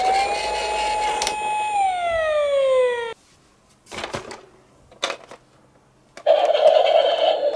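Toy ambulance minicar's electronic siren: one wail that rises, holds, then falls in pitch and cuts off suddenly about three seconds in. A few short clicks follow, and a steady, continuous sound begins near the end.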